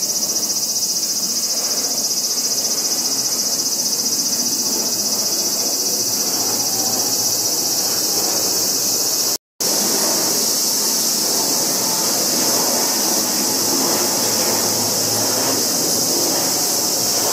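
A steady high-pitched insect chorus, with the rumble of an Embraer regional jet's engines on landing approach growing louder in the second half. The sound cuts out for a moment about halfway through.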